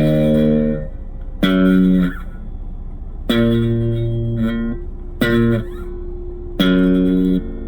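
Electric guitar played through a Blackstar ID Core V3 10-watt practice amp: about five separate notes struck and left to ring, each for half a second to a second and a half, with short gaps between. A steady low hum sits underneath.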